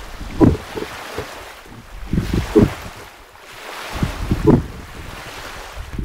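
Muffled underwater water noise heard through a camera's underwater housing, with low surging thumps about every two seconds as the diver swims.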